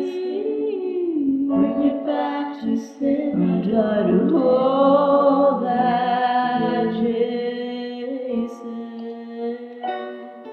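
A young woman's voice singing a slow melody in long, held notes with vibrato.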